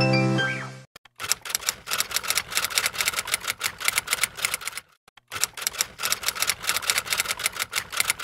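Typewriter sound effect: rapid key clicks in two runs, with a short break about five seconds in. Upbeat background music ends within the first second.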